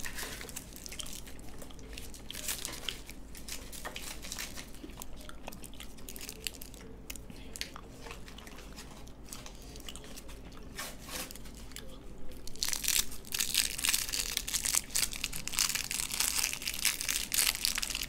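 Foil and plastic chocolate wrappers crinkling as they are twisted and peeled open by hand, mixed with some chewing. The crinkling grows louder and denser about two-thirds of the way in.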